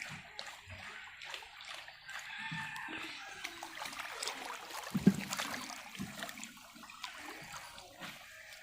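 Water sloshing and trickling in irregular small splashes, with one sharper, louder splash about five seconds in.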